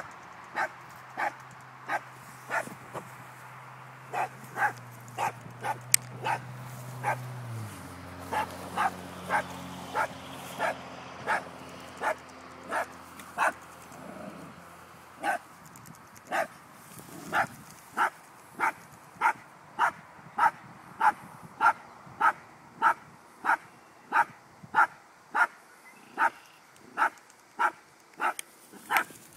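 Small dog barking over and over at a baby groundhog, short barks at a steady pace of roughly one to two a second, with a couple of brief pauses.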